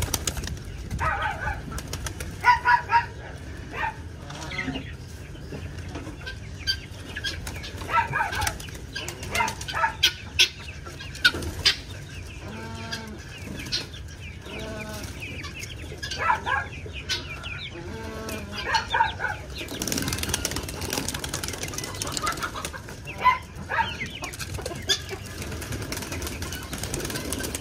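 Chickens and pigeons being let out of their coop: wings flapping as they fly and scramble out, with short clucking calls from the hens and roosters throughout.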